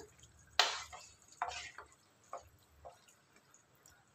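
Wooden spatula stirring soaked basmati rice through watery biryani liquid in a pan. A few wet slaps and splashes are heard: the loudest comes about half a second in, then fainter ones follow at uneven gaps.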